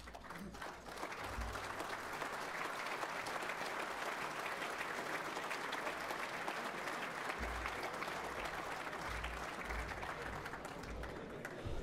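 Audience applauding, a dense clatter of many hands clapping. It swells over the first second or so and eases off near the end.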